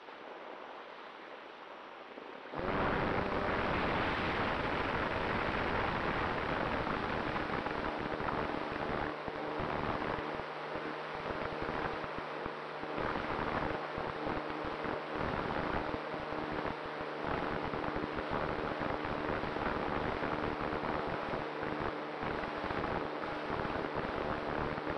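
Airflow rushing over the onboard camera of a Cularis RC motor glider in flight, jumping suddenly much louder about two and a half seconds in as its electric motor and propeller start, with a steady hum beneath the rushing.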